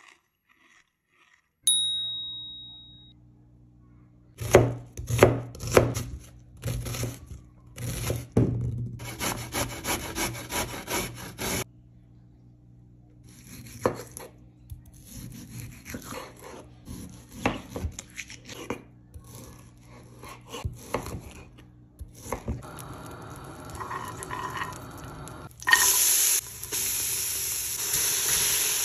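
Vegetables being cut on a wooden cutting board in quick repeated knife strokes, with scattered knocks and scrapes of kitchen work after. Near the end comes a sudden loud sizzling hiss as food goes into a hot pot to fry. A single ringing clink sounds just under two seconds in.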